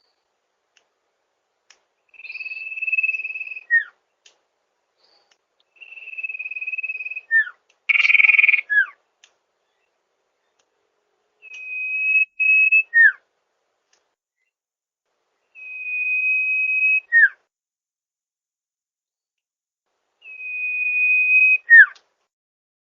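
Sirtu bird song: five repeated phrases, each a long steady high whistle followed by a short downward-falling note, coming every four to five seconds. A louder, rougher burst comes about eight seconds in, just before the falling note of the third phrase.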